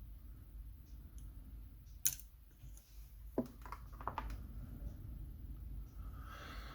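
Scattered small metal clicks and taps from handling a euro cylinder lock's parts and tools as it is taken apart: a sharp click about two seconds in, then a cluster of clicks a second or so later.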